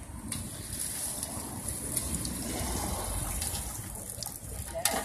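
Hot crawfish boil water pouring and trickling off as the boil basket is tilted to drain, a steady splashing stream that swells a little midway.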